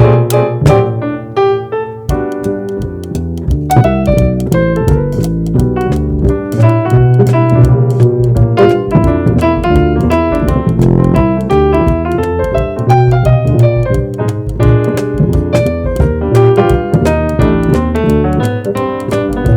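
Jazz piano trio playing: keyboard chords and melody over a walking bass line and drums, with frequent light cymbal and drum strokes.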